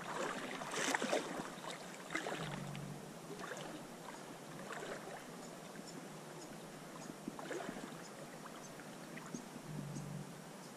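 A person wading through shallow water: irregular sloshing splashes as the legs push through, louder about a second in, then a splash every second or two.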